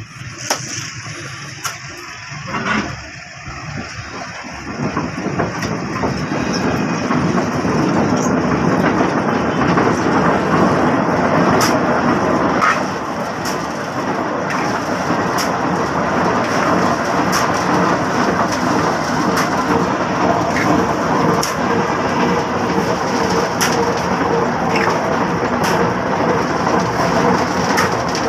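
Concrete mix rumbling and rattling inside a steel pipe mould turning on its roller wheels, a loud steady rush that swells over the first several seconds, with scattered sharp clicks and knocks.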